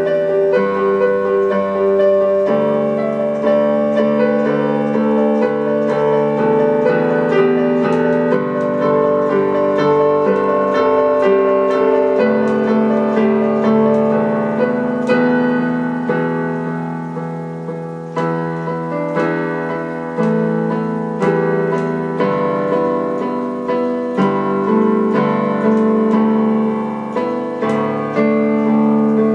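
Solo piano music with many notes struck in quick succession, dipping slightly in loudness about two thirds of the way through.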